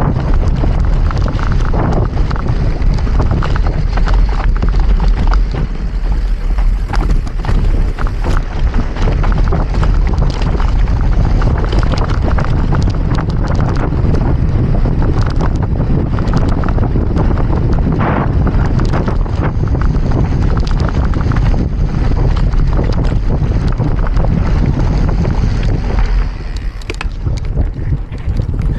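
Mountain bike ridden hard over rough trail, with wind buffeting the camera microphone in a constant rumble and the bike rattling and knocking over the bumps.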